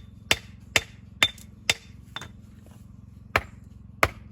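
Hammer blows on stone as a mason dresses building stone: a steady run of sharp strikes about two a second, some with a brief ring. After a pause of about a second there are two more strikes near the end.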